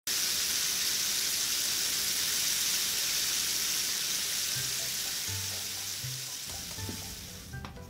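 Chicken deep-frying in hot oil: a steady, loud sizzle that starts abruptly and fades away near the end as background music comes in.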